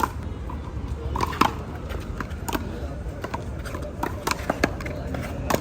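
Rubber handball play on a one-wall court: a series of sharp, irregular smacks and taps of the ball against hands, wall and pavement, with faint voices behind.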